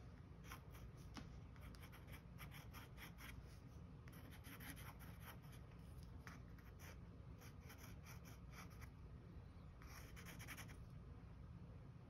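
Felt-tip pen scratching on paper in quick, short scribbled strokes, coming in several faint bursts with pauses between.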